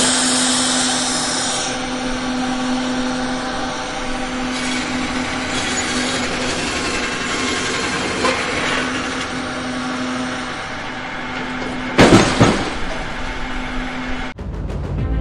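Sawmill saw and machinery running steadily with a constant hum, with a louder burst about twelve seconds in. It cuts off abruptly near the end and music takes over.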